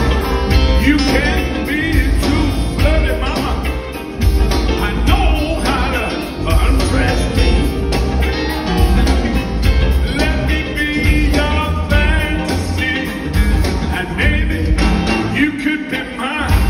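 Live rock-and-roll band playing loudly, a male lead vocalist singing over a steady drum beat with electric guitar and bass.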